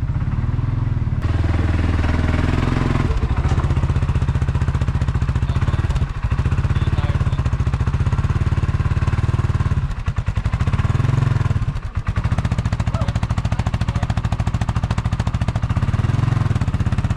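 ATV engine running and being revved up and down several times as the four-wheeler is driven up loading ramps.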